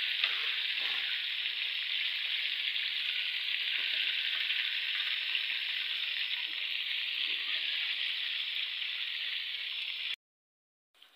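Chicken pieces deep-frying in hot oil, a dense, steady sizzle that stops abruptly about ten seconds in.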